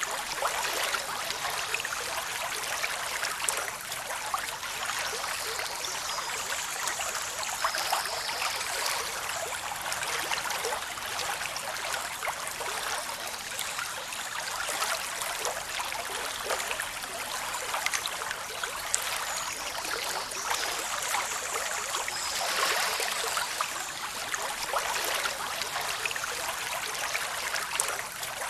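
Waterfall rushing over rocks: a steady, unbroken splashing rush of water, mostly in the upper range with little low rumble.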